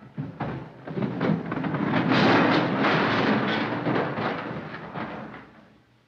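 Crash and clatter of scrap car parts and tires tumbling out of a van's back doors onto the ground. A jumble of knocks and bangs builds to its loudest about two seconds in and dies away near the end.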